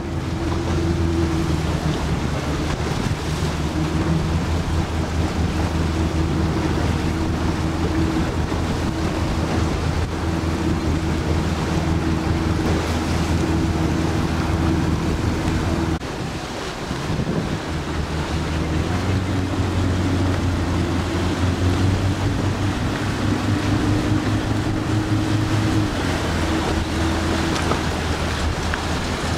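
A motorboat's engine runs steadily with wind and water noise, its note dropping away briefly about sixteen seconds in before picking up again.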